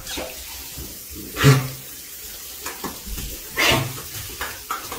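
Water running from a shower head onto a tiled shower floor, a steady splashing hiss. Two short, louder sounds stand out, about a second and a half in and near four seconds in.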